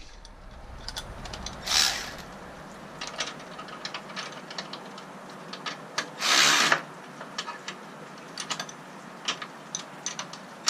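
Hand ratchet with a 13 mm socket clicking in short strokes as it tightens a hood-strut ball stud. Two brief, louder rasps come about two seconds in and again about six seconds in.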